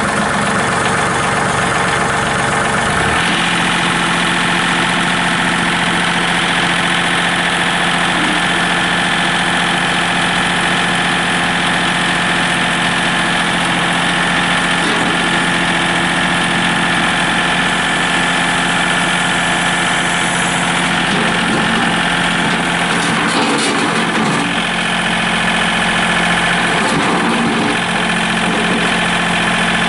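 John Deere 2032R compact tractor's three-cylinder diesel engine idling just after a start, its note changing about three seconds in and then holding steady.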